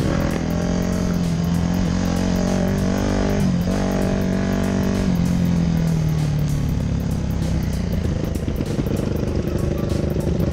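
Dirt bike engine running while riding, its pitch holding steady for several seconds, then dropping away as the bike slows down.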